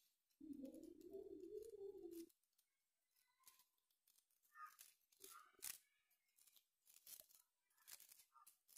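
Paper crinkling and rustling in short, sharp crackles as hands shape and press together the yellow petals and green leaves of a handmade paper flower. Near the start there is a low, wavering hum-like sound lasting about two seconds.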